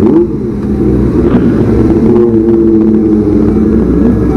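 Kawasaki ZX25R inline-four sport bikes running on loud aftermarket exhausts while being ridden, at a fairly steady pitch.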